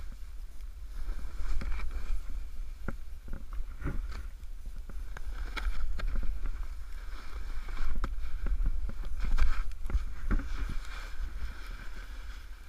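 Snowboard riding through powder snow: an uneven swishing and scraping of the board through the snow that swells and fades, with irregular knocks. Wind rumbles on the microphone throughout.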